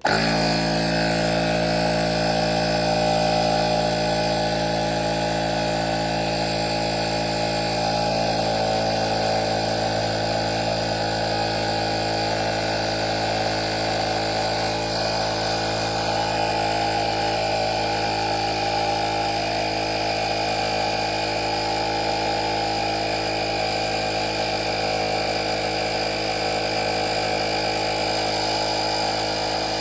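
Cordless portable tire inflator's small piston compressor starting and running steadily with a loud buzzing drone as it pumps up a basketball, the pitch easing slightly as the pressure builds.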